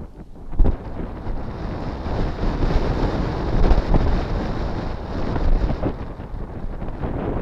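Wind gusting across an outdoor microphone, a rumbling buffet that swells to its strongest through the middle and eases off near the end.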